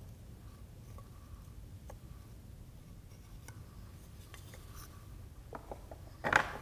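Faint, scattered handling sounds: soft taps and rustles of the storytelling set's wave pieces being lifted off a felt mat and laid aside, over a low room hum. A short, louder sound comes near the end.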